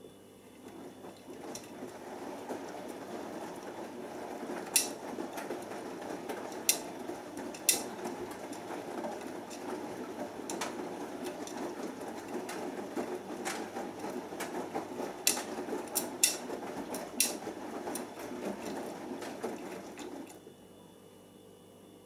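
Beko Excellence WMB81445L front-loading washing machine tumbling a wet load of laundry in its drum on a 40°C cotton wash, with several sharp clicks over the steady tumbling noise. The tumble builds up just after the start and stops suddenly about two seconds before the end as the drum pauses.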